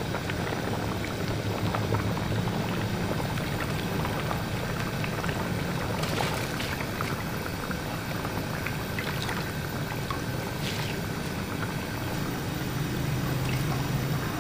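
Mutton stock boiling in a pot over a gas flame turned up high: steady bubbling with scattered small pops, over a low steady hum.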